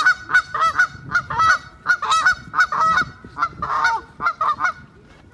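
A group of Canada geese honking: short, overlapping calls, several a second, breaking off shortly before the end.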